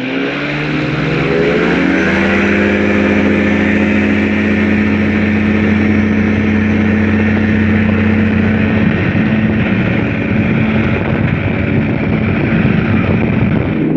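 Engine of a weight-shift microlight trike being throttled up, its pitch rising over the first two seconds and then holding steady at high power as the trike rolls along a grass runway for takeoff. The sound grows rougher in the second half.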